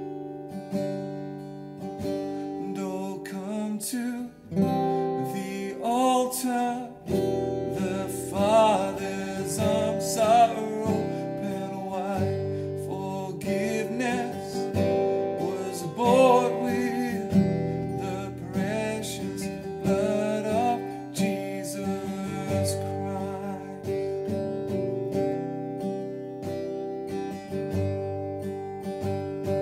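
Strummed acoustic guitar chords, with a man singing a slow worship song over them.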